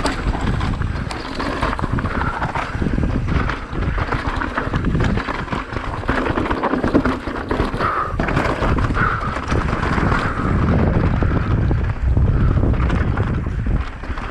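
Wind buffeting the microphone over the rattle and tyre noise of an electric mountain bike descending a rough downhill trail, with many small knocks and clatters from the bike over roots and rocks.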